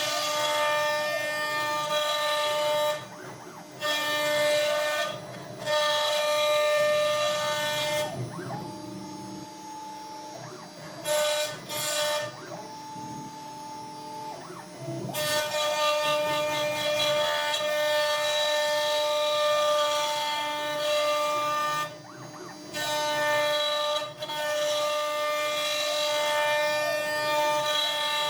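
CNC router spindle whining steadily with several overtones as a quarter-inch ball end mill carves cherry, with brief breaks in the cut and a quieter, lower-pitched stretch for several seconds near the middle. It is running at the full programmed feed rate, which the maker judges too high.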